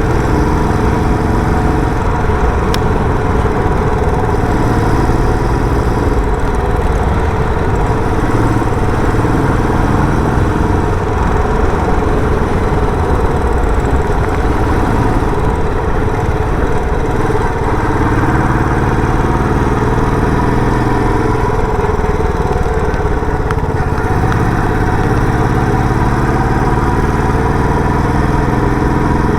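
Royal Enfield Bullet 350's single-cylinder engine running through its stock silencer while being ridden, the exhaust note steady with its pitch rising and falling as the throttle changes.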